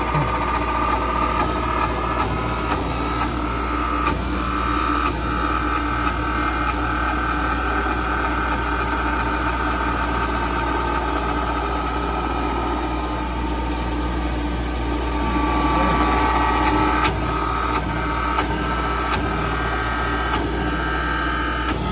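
Duplicating lathe running as its cutter shaves a spinning wooden baseball bat blank: a steady machine hum with a whine above it. A few sharp ticks come near the end.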